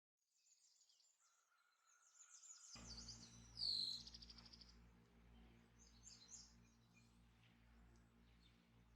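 Faint birds chirping, with quick high sweeping calls, the loudest a little under halfway through. A low steady hum comes in about a third of the way in.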